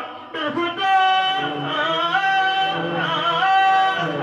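A man singing solo into a microphone, amplified through a PA: long held notes that slide up and down between pitches, the melisma of devotional chant. A short break just at the start, then the singing resumes.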